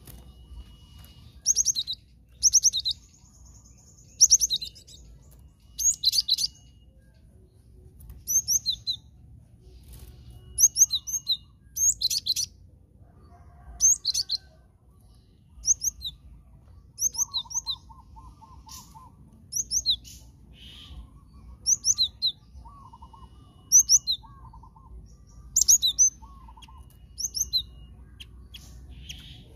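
Cinereous tit (glatik batu) singing: short bursts of rapid, sharp, high whistled notes, each note falling in pitch, repeated every one to two seconds.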